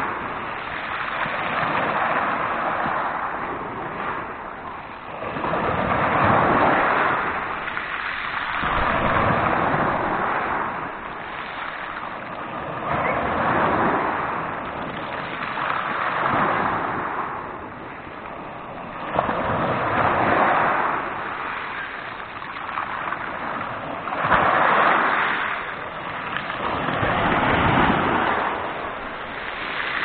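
Small sea waves breaking and washing up a pebble beach, the surf swelling and falling back every three to four seconds.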